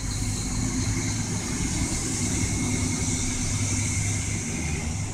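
Road vehicle engine running steadily, a low hum under a steady high hiss and a faint high whine.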